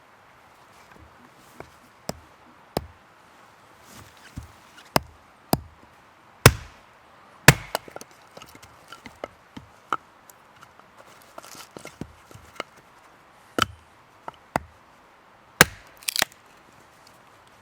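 Wood being chopped: a dozen or so sharp blows at uneven intervals, the loudest about six and a half and seven and a half seconds in.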